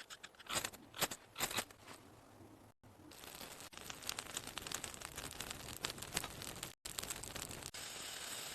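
Crunching and crinkling noises: a few sharp crunches, then a dense crackling that breaks off abruptly twice, settling into a steady hiss near the end.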